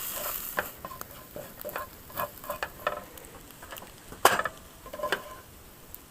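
Eggs being scrambled in a frying pan still greasy from bacon: a light sizzle under repeated short scrapes and taps of a utensil against the pan, with one louder knock about four seconds in.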